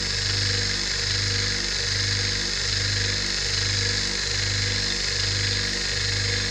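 Rotary vane vacuum pump running steadily, pulling vacuum on a Büchner funnel and filter flask during vacuum filtration. A low hum pulses a little faster than once a second over a steady hiss.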